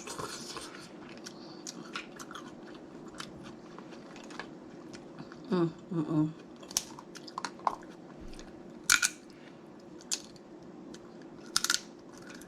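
Snow crab legs being eaten close to the microphone: crab shells cracking and snapping in scattered sharp clicks, with chewing between them.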